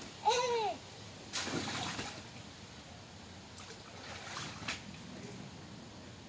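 A young boy's brief yelling cry, then water splashing and sloshing in a shallow inflatable paddling pool as he moves about in it, louder about a second and a half in and fainter around four seconds.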